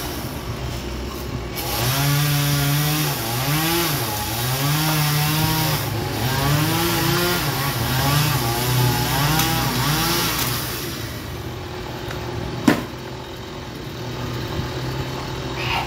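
Chainsaw cutting into a ketapang kencana trunk high in the tree, its engine note rising and falling over and over as the throttle works through the cut. One sharp crack stands out about three-quarters of the way through.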